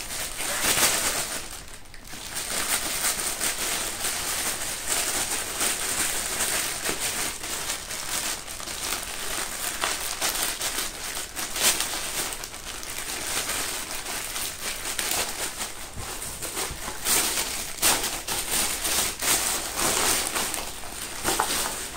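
Plastic courier mailer bag crinkling and crackling as it is cut open with scissors and pulled apart by hand, a dense, irregular rustle with a short lull about two seconds in.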